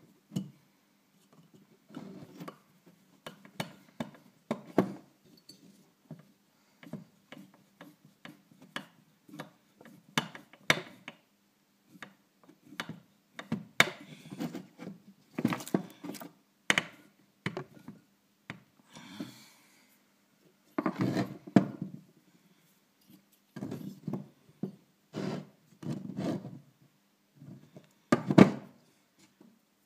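Hand work on a Traxxas TRX 3.3 nitro RC engine on a wooden bench: a hex driver turning screws at the rear of the engine, with irregular clicks, scrapes and knocks of metal parts against the wood as the engine is handled and set down.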